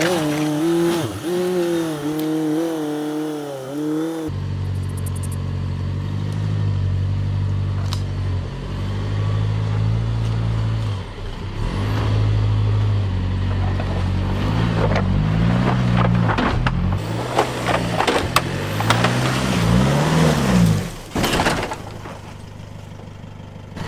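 Isuzu D-Max 4WD's diesel engine working at low revs on a steep off-road climb, the revs rising and falling several times. Scattered knocks and scrapes come from the underbody striking the ground; the front bash plate takes a hit.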